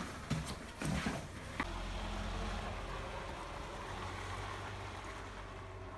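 A few knocks and clicks, then a car engine running with a steady low hum from about a second and a half in, slowly growing fainter.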